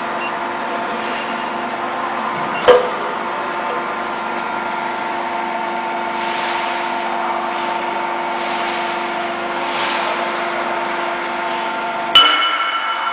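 Hydraulic press's pump and electric motor running with a steady hum and whine during a distance-controlled pressing stroke. Two sharp metallic clanks break it, one between two and three seconds in and one near the end that rings briefly.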